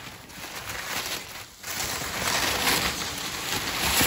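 Plastic bubble wrap rustling and crinkling as it is handled and pulled back. It starts about one and a half seconds in and goes on as a steady crackle.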